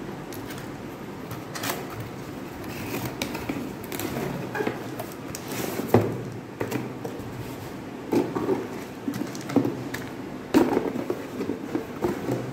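Plastic shrink-wrap being peeled off and crumpled and a cardboard box handled: irregular crinkling and rustling with several knocks, the sharpest about six seconds in.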